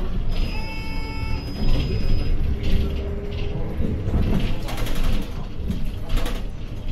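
City bus running, its engine and road rumble heard from inside the cabin, with a short electronic chime about half a second in.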